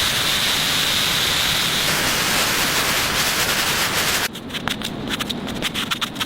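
Steady, loud hissing rush of noise. About four seconds in it breaks into a crackling, stuttering scraping sound.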